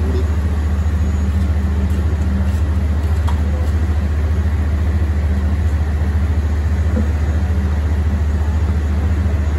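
Loud, steady low drone of a running machine, with no change in pitch or level.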